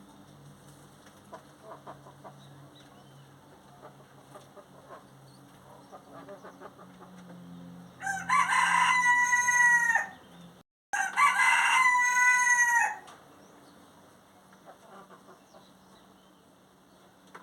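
Rooster crowing twice, each crow about two seconds long, the second following about three seconds after the first. Faint clucking in the quieter stretches.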